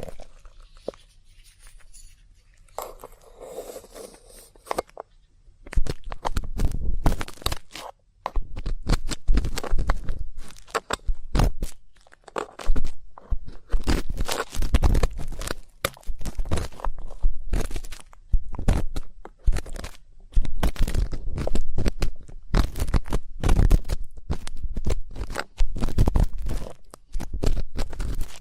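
Ear pick scraping and scratching close in an ear, a dense run of crackling scrapes that starts about five seconds in after a quieter, sparser opening.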